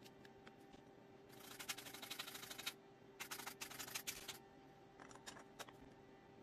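A cleaning tool scrubbing over the plastic body of a Nikon DSLR: two bursts of rapid, scratchy crackle, each a little over a second long, followed by a few faint clicks near the end.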